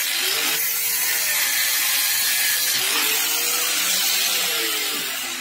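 Angle grinder with a cut-off disc grinding through metal on the moped's engine, cutting down the substitute shaft fitted in place of the missing one. Its motor pitch wavers as the disc is pressed in, and the sound eases off near the end.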